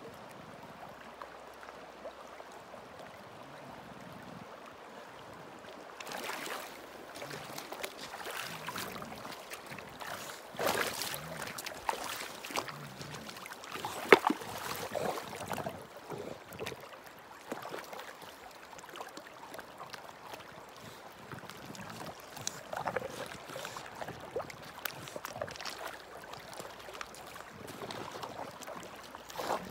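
An English bulldog wading through a shallow river, splashing irregularly over a faint steady rush of moving water. The splashing starts about six seconds in, with one sharp, loud slap about fourteen seconds in.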